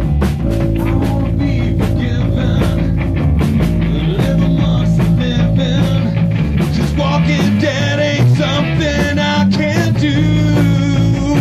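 Rock band playing live, loud and steady: drum kit, electric bass and guitar in a punk-rock style.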